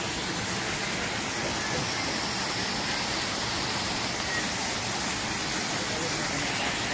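Steady rush of water falling into a pool from a fountain jet and small waterfalls over rockwork.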